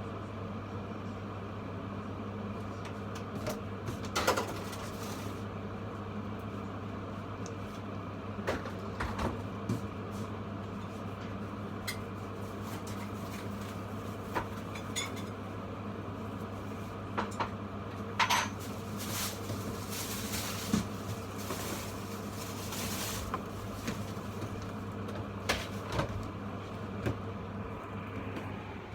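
A steady electrical hum from a running kitchen appliance, with scattered clinks and clatters of dishes and utensils being handled; the hum cuts off at the very end.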